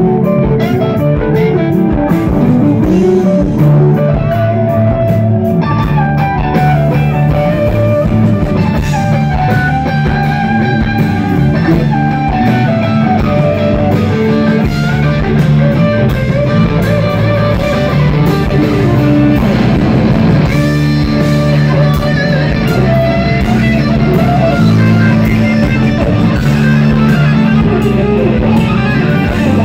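Live rock band playing an instrumental section: a semi-hollow-body electric guitar plays moving melodic lead lines over bass guitar and drums, loud and steady throughout.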